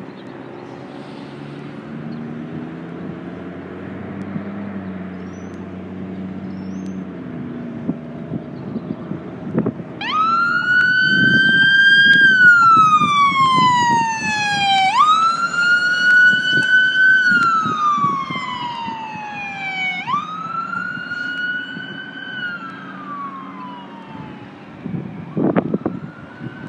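Road traffic and a vehicle engine running. Then, about ten seconds in, an emergency vehicle siren in wail mode: three cycles, each rising quickly and falling slowly. It is loudest in the middle and dies away a few seconds before the end.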